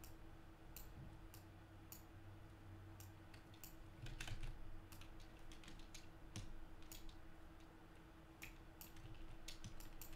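Faint, irregular clicks of a computer mouse and keyboard while working in a drawing program, over a low steady hum.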